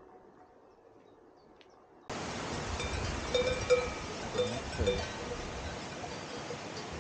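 Near silence for about two seconds, then cowbells on grazing cattle clanging irregularly, with a few louder strikes in the middle.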